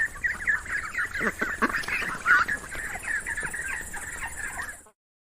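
A flock of ducks quacking and chattering, many short calls overlapping. The sound cuts off suddenly about half a second before the end.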